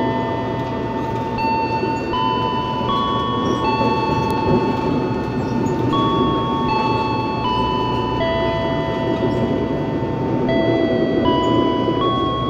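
Background music with a soft chiming melody of held notes, over the steady rumble of an electric commuter train running, heard from inside the carriage.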